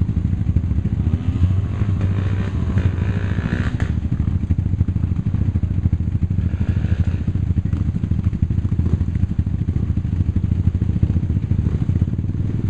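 Off-road vehicle engine idling steadily close by, a low, even rumble. Faint voices are heard briefly in the background.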